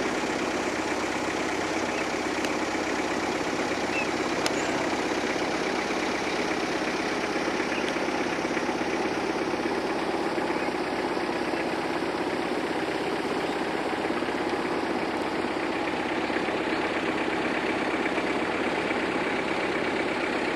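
A boat's motor running steadily as the boat cruises along, an even drone with no change in speed.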